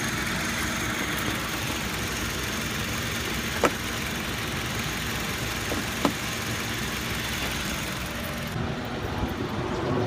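2010 Toyota Tacoma engine idling steadily. Two short clicks, about two and a half seconds apart, come as the turn-signal bulb socket is worked back into the headlight housing.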